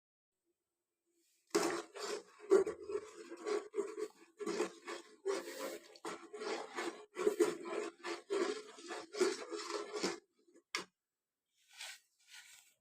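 A utensil scraping and stirring in a cooking pan in quick, irregular strokes for about eight seconds, then a single sharp tap.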